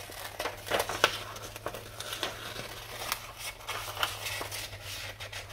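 Scissors snipping through a glossy magazine page in a series of irregular cuts, with the paper rustling as it is turned and held.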